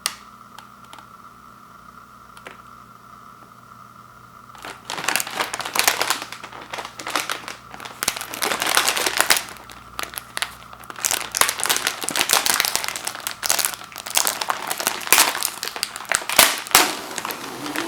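Plastic wrapper of a Chips Ahoy! soft-cookie package crinkling as it is handled and opened. Before that there are only a few light clicks, and the crinkling starts about five seconds in, continuing in irregular bursts.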